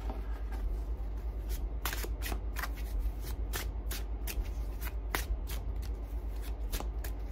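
A deck of tarot cards shuffled by hand: quick, irregular snaps and slides of the cards, over a steady low hum.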